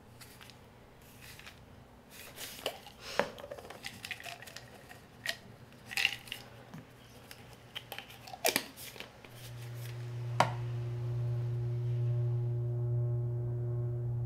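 Small clicks and scrapes of a plastic pill bottle being handled and opened, scattered over several seconds. From about two-thirds through, a low steady musical drone fades in and swells.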